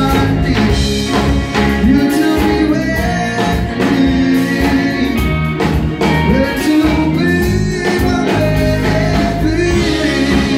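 A live pop-rock band playing amplified electric guitars, bass, drum kit and keyboard, with a lead vocalist singing over them.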